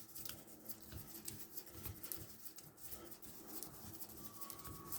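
Faint, irregular small clicks and light scraping of a hand tool running in the cylinder screws on a Stihl 020T chainsaw, the screws snugged up without being tightened.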